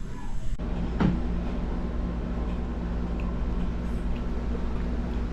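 A steady low mechanical hum, with a single sharp knock about a second in.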